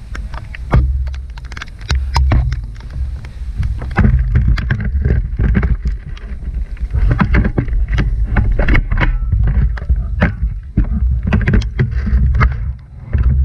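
Heavy rain with wind buffeting the microphone: a deep rumble under dense, irregular taps of raindrops striking close to the microphone.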